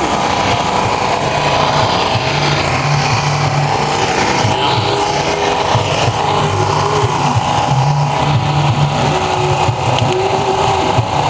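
A motor running steadily with a continuous hum.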